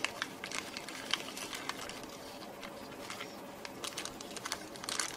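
Small clear plastic zip bags of electronic parts crinkling as they are handled: a run of small crackles, thicker near the start and the end and thinner in the middle.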